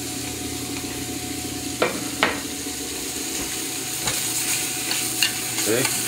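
A thin ribeye steak sizzling in a very hot skillet, with a few sharp metal clicks as tongs move the steak against the pan.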